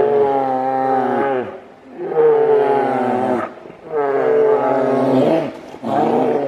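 Two grizzly bears roaring as they fight: four long, drawn-out roars in a row, about a second and a half each with short breaks between, each dropping in pitch as it ends.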